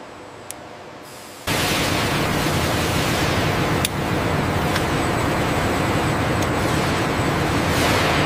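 Faint background with a few light clicks, then, about one and a half seconds in, a loud steady rushing factory noise cuts in abruptly and holds, with a few sharp clicks over it.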